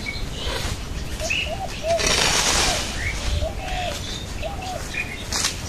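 A hoe scraping and chopping through weeds and soil in a few strokes, the longest about two seconds in. Birds call throughout, with short arching coos and high chirps.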